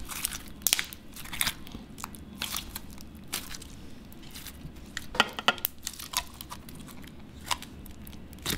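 Hands squeezing and kneading a putty-like shimmer slime (Elmer's Neon Shimmer), giving irregular sharp little pops and crackles.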